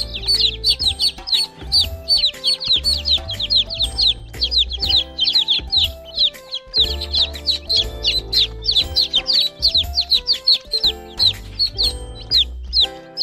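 Baby chicks peeping continuously, a rapid run of short, high, downward-sliding chirps, over background music with a bass line that drops in and out.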